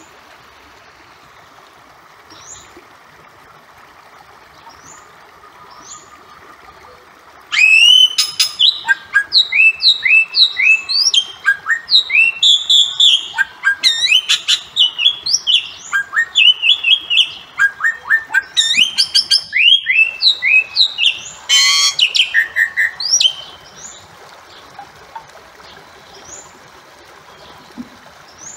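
Bali mynas calling. A few faint calls come first, then about seven seconds in a loud run of short rising and falling whistled notes begins, several a second. After some sixteen seconds it drops back to faint occasional calls over steady background noise.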